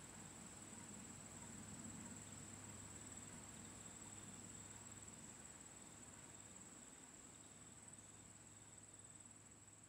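Near silence: a faint, steady high-pitched drone over a faint low hum. Nothing sudden stands out, and the spinning hot air fan is not clearly heard.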